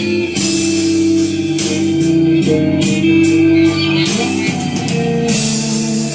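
Music played back through a B&O BeoPlay A2 portable Bluetooth speaker: a song with held, organ-like chords and a regular beat of high, crisp hits.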